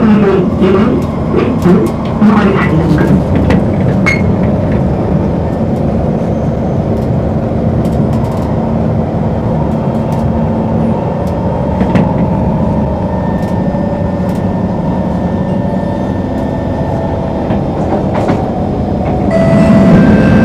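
Singapore MRT train running, heard from inside the carriage: a steady rumble of wheels and motors, with clicks over the rails in the first few seconds and faint steady whining tones in the middle. It grows louder near the end.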